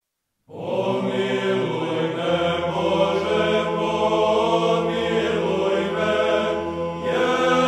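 Voices chanting an Orthodox church hymn in long held notes, with a low drone joining about two seconds in.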